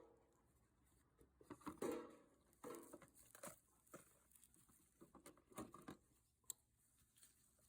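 Faint, irregular small clicks, taps and rustles of gear being handled at close range.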